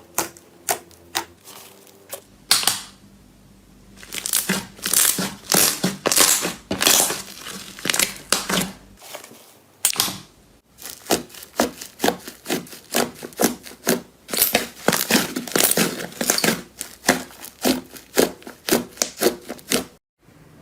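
Slime being squeezed and poked by hand, giving dense runs of sharp crackling clicks and pops. A few separate clicks come first, then a short pause, then the clicking turns rapid and continuous, with a brief break about halfway.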